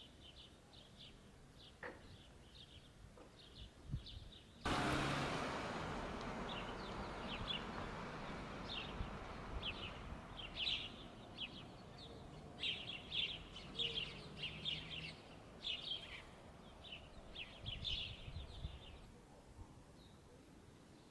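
Small birds chirping repeatedly in short, quick bursts. About four and a half seconds in, a steady rushing noise starts abruptly and slowly fades over the following seconds.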